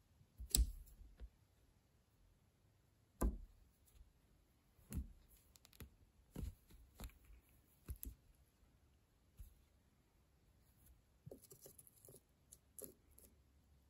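Soft, irregular knocks and taps, with a quick run of small clicks near the end, as a cat shifts about in a plush cat-tree bed.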